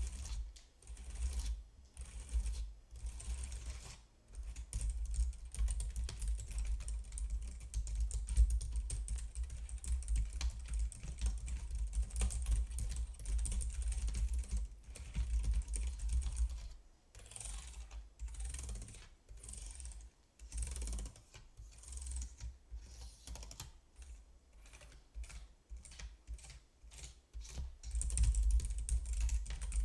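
Typing on a computer keyboard: rapid clicking keystrokes. The typing runs fast and continuous for a long stretch, breaks into shorter separate bursts past the middle, then picks up again near the end.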